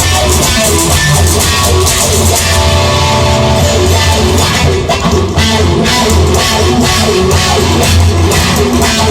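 Instrumental rock music: guitar over a drum kit beat, with no singing.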